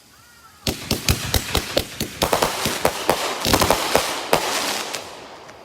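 Consumer firework cake's aerial effects breaking into rapid crackling pops. They start about a second in, thicken into a dense crackle, then fade out near the end.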